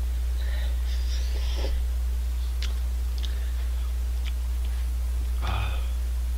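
A man slurping spicy instant ramen noodles and breathing sharply through the heat, with a few light clicks of chopsticks against the cup, over a steady low electrical hum.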